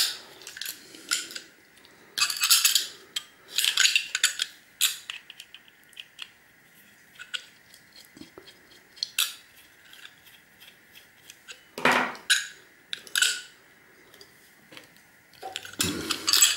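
Irregular metallic clicks, clinks and scrapes of a hard drive's metal casing and internal parts being handled and worked apart by hand.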